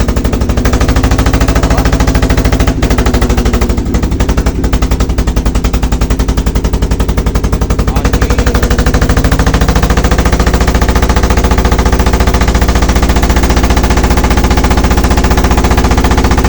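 Boat engine running hard with a rapid, even firing beat. About nine seconds in the pitch shifts and the low end grows heavier. The engine is described as nearly due for an overhaul.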